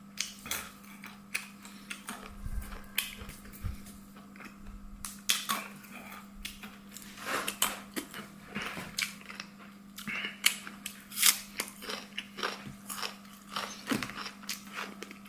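A person chewing and biting food close to the microphone: irregular short clicks and crackles of the mouth and food, over a steady low hum.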